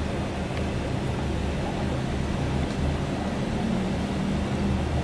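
Steady low rumble with a constant hiss from aquarium aeration: air pumps running and air bubbling up through the tanks' airline tubes.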